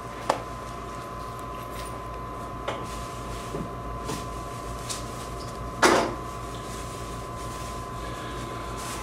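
A steady electrical hum with a few light clicks, and a louder knock about six seconds in, like something being handled or a panel bumped.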